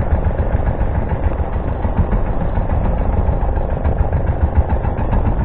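Fishing boat's engine running steadily: a continuous low rumble with no change in pace.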